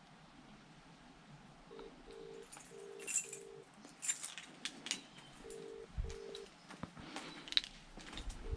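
British telephone ringback tone, the double ring of an outgoing call ringing out unanswered, heard from a phone. Clicks and rustling handling noise and a couple of low thumps go on between the rings.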